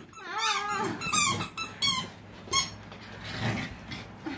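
A bichon frise giving a run of short, high-pitched yips and whines during rough play, most of them in the first half.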